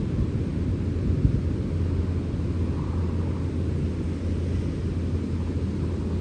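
Sea wind blowing steadily, a low rumbling rush with the wind buffeting the microphone, and one brief stronger gust about a second in.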